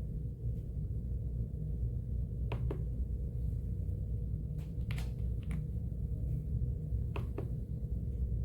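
A few scattered mechanical keyboard key presses, mostly in close pairs, over a steady low hum.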